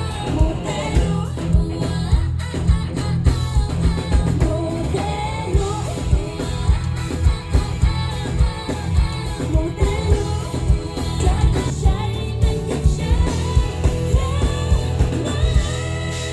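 T-pop song played loud, with singing over a steady pounding beat.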